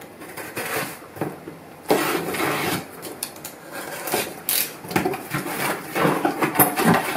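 A box cutter slicing along the packing tape on a cardboard box, with scraping and crackling. Near the end the cardboard flaps are pulled open and paper rustles.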